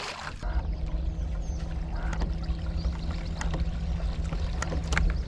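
Bass boat's electric trolling motor humming steadily over a low rumble, starting about half a second in and easing near the end, with a few light clicks.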